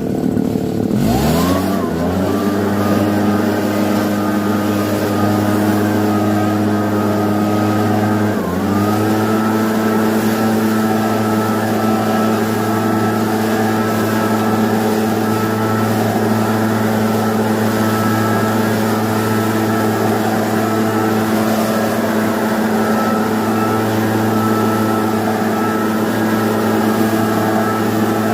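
Husqvarna 360BT backpack leaf blower's two-stroke engine revving up to full throttle, with a steady high fan whine above it. About eight seconds in, the throttle dips briefly and comes straight back up, then the blower runs steadily at full throttle.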